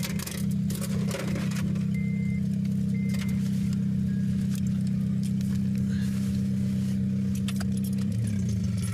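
An idling vehicle engine: a steady low hum that wavers in pitch near the end. Metal jingling and clicking over it, and two short high beeps about a second apart.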